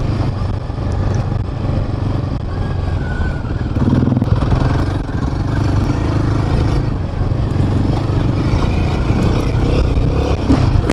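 Royal Enfield Himalayan 450's single-cylinder engine running steadily as the bike rides over a sandy dirt track, with a broad rushing noise over it.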